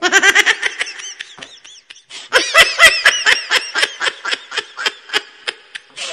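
A person laughing in quick ha-ha-ha pulses, a short run, a pause of under a second, then a longer run.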